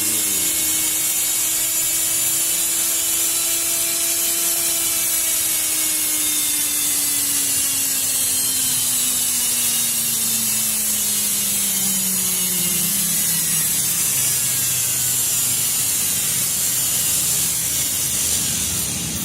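An LG front-load washing machine's brushed motor runs free on direct mains power, with a steady hiss from its carbon brushes and commutator. Its whine rises slightly in pitch over the first few seconds, then slowly falls and settles, and the sound drops away at the very end. The run shows the motor is still in good working order.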